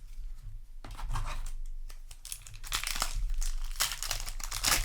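A foil Magic: The Gathering booster pack wrapper crinkling and tearing as it is handled and opened, in irregular crackly bursts that pick up about a second in and are busiest in the second half.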